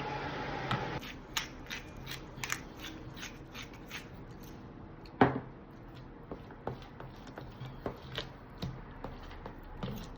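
A spoon stirring a thick cream-cheese dip in a bowl: a wet churning for the first second, then irregular clicks and scrapes of the spoon against the bowl, with one louder knock about five seconds in.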